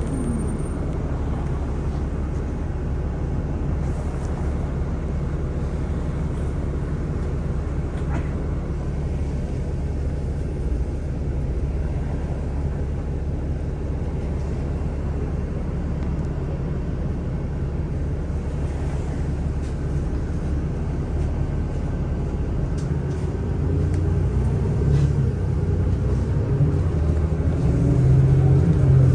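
A city transit bus heard from inside, its engine and road noise making a steady low rumble. In the last few seconds it grows louder, with the engine note rising and shifting as the bus accelerates.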